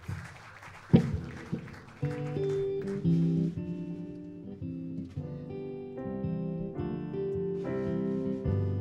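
A sharp knock about a second in, then an acoustic guitar starts picking a slow intro of ringing single notes and chords.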